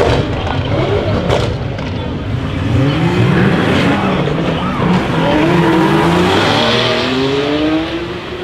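Car engine accelerating hard, its pitch climbing steadily over several seconds, with a sharp crack at the start and another about a second and a half in.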